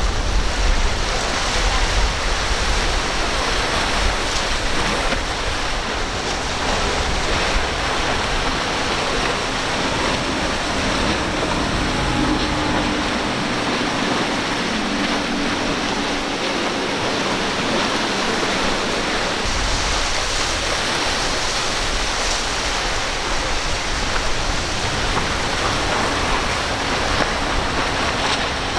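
Steady rush of water and spray from outboard-powered fishing boats running at planing speed through choppy water. A faint low engine hum shows through partway in.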